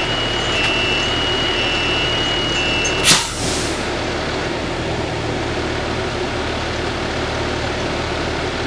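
Fire apparatus's engine idling steadily, with a thin steady high tone over it that cuts off about three seconds in at a short, sharp burst of hiss.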